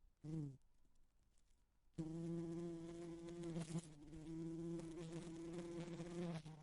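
A bee buzzing against a window pane: a short buzz that drops in pitch near the start, a pause, then a long steady buzz from about two seconds in, broken by a couple of brief clicks midway.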